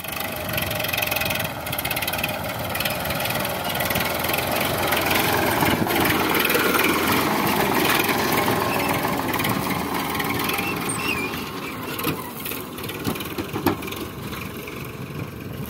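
Sonalika tractor's diesel engine running steadily, with a few sharp clicks near the end.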